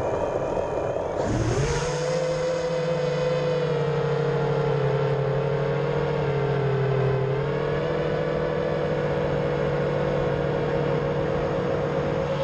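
Racing quadcopter's brushless motors spinning up sharply about a second in, then a steady whine that dips slightly in pitch and comes back up as the quad flies.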